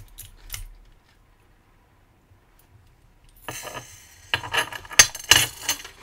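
A few light metallic clicks from a Euro cylinder and its key being handled. Then, over the last two and a half seconds, a clatter of sharp clicks and rattles as the cylinder's plug is pulled out with the key, its circlips removed, and the small brass pins and springs spill and scatter onto the desk mat.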